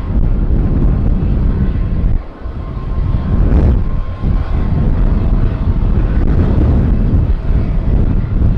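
Jet airliner on approach to land, its engines a steady rumble with a faint steady whine, mixed with wind buffeting the microphone.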